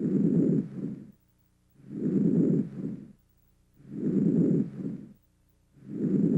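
Normal vesicular breath sounds heard through a stethoscope: soft, low-pitched breathing, each inspiration followed by a shorter, fading expiratory sound, then a pause. About one breath every two seconds, three full breaths and the start of a fourth.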